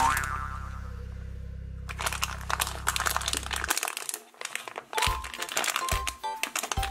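Plastic blind-bag packet crinkling and crackling as hands squeeze and pull slime off it, over background music that cuts off about halfway through.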